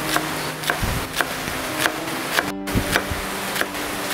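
Chef's knife chopping spring onions on a wooden chopping board: sharp knocks of the blade on the wood, about two a second, over background music.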